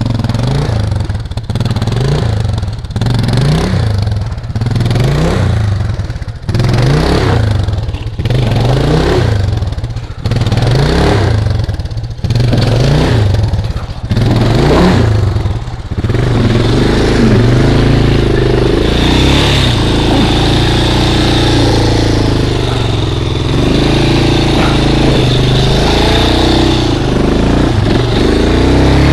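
Off-road motorcycle engine revved in short rising blips a little over once a second for about the first sixteen seconds, then held at higher, steadier revs. It is the sound of a bike bogged down in deep mud being worked free.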